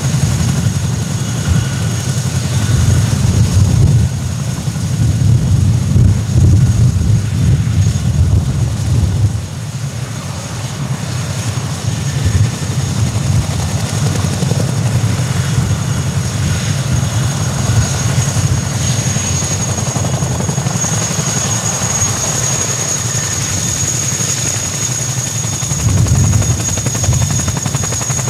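Boeing CH-47 Chinook twin tandem rotors turning on the ground, a heavy low rotor beat with the steady high whine of its twin turboshaft engines over it. The beat is loudest in the first nine seconds, eases, and swells again near the end.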